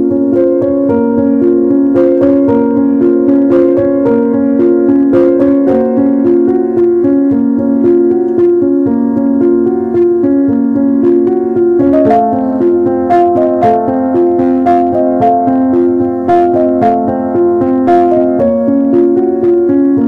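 Background music played on a piano-like keyboard: a steady melody of held notes, moving up to a higher part about twelve seconds in.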